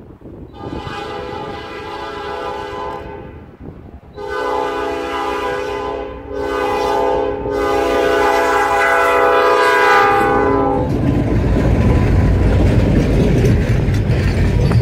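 Diesel locomotive air horn sounding a chord in four blasts, long, long, short, long: the grade-crossing warning signal. From about eleven seconds in, the locomotives pass close by with a loud, low rumble of engines and rolling wheels.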